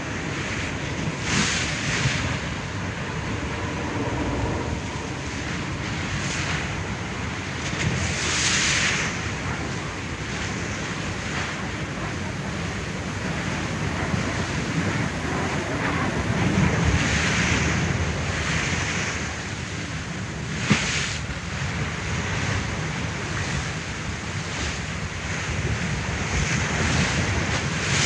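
Ocean waves surging and splashing over a steady low rumble of wind and water, with a burst of spray every few seconds and one sharp slap about two-thirds of the way through.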